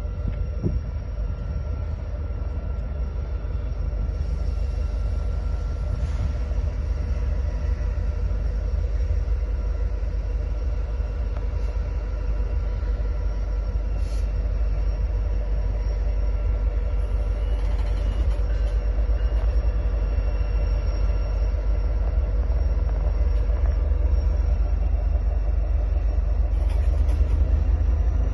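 Train running: a steady low rumble with a faint steady whine over it, slowly getting louder, with a faint whine rising in pitch near the end.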